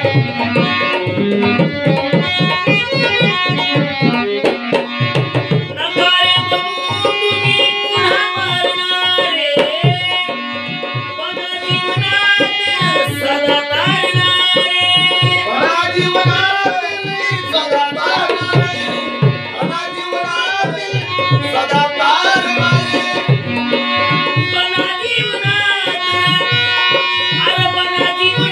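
Marathi devotional song music: tabla drumming a steady rhythm under a gliding melodic line.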